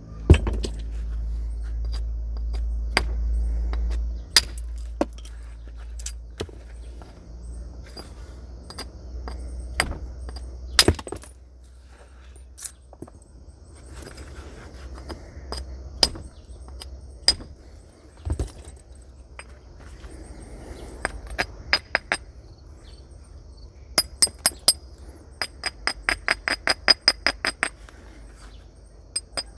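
Flint being knapped with natural stone and antler-type tools: scattered sharp, clicking strikes on the stone as flakes are driven off. Near the end comes a quick run of light taps, about five a second.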